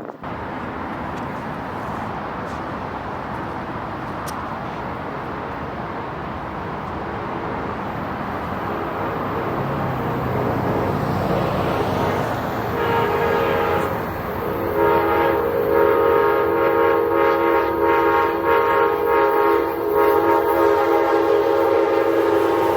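Amtrak Pacific Surfliner train approaching with a rising rumble, then its multi-chime air horn sounding about halfway through as a chord of several steady tones: a short blast, then two long blasts, the horn played as a horn show.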